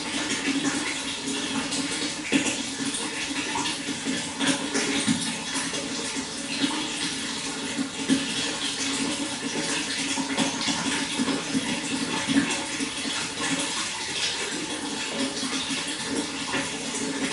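Running water, a steady rush with small irregular splashes and gurgles throughout.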